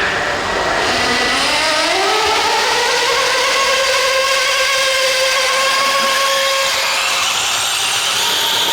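Motor of an RC pulling vehicle winding up during a pull: a whine that rises in pitch over about three seconds, then holds steady.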